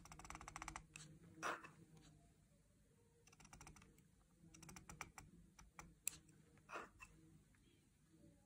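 Faint scratching of a reed pen (qalam) nib dragged across paper in short ink strokes: clusters of fine rapid clicks, with a few single sharper ticks.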